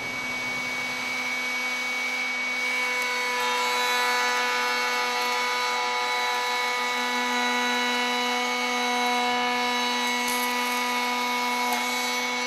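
Table-mounted router spinning a Freud 45-degree lock miter bit, running with a steady whine while it cuts the lock miter profile into a hardwood board fed past it.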